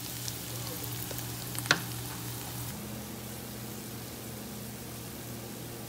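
Sweet-corn kernels with onion and epazote sizzling in butter and oil in a skillet, just taken off the heat. A wooden spatula stirs and scrapes through the corn in the first half, with a sharp knock against the pan a little under two seconds in.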